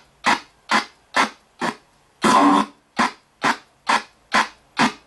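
RTC ghost box sweeping through radio stations, giving short bursts of static and station fragments about twice a second, chopped off by silence between them. About two seconds in, one longer fragment with a pitched sound comes through.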